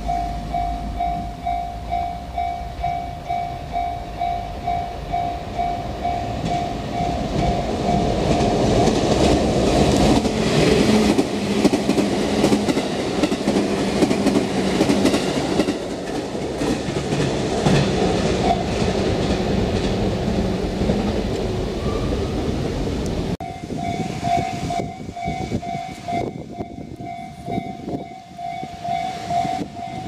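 A railway level-crossing warning bell rings in a steady, repeating rhythm while an electric train runs through the crossing. The train's passing noise, with clattering from the wheels, swells to the loudest part in the middle and covers the bell. About three quarters of the way in the train noise cuts off suddenly and the crossing bell is heard ringing again.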